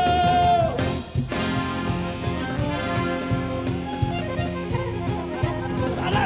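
Frevo song: a sung phrase ends on a long held note in the first second, then an instrumental passage with a steady beat.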